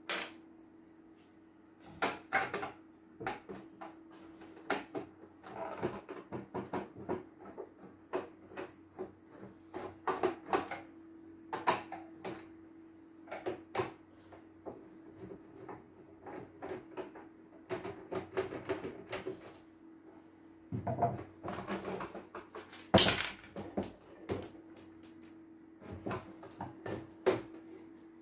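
Irregular clicks, taps and clatter of small screws and plastic parts being handled on a wooden workbench while an embroidery machine is taken apart with a screwdriver, with one sharper knock late on. A steady hum runs underneath.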